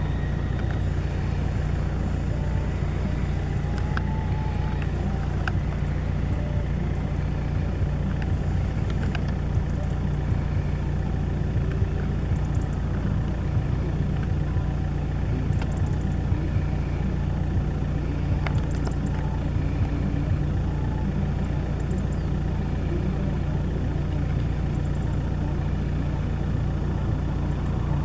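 A steady low rumble, like an engine idling, unchanging throughout.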